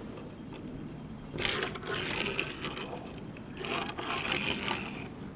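Hot Wheels toy car's wheels rolling and skidding across a hard surface: two stretches of rattly scraping, starting about a second and a half in and again near four seconds.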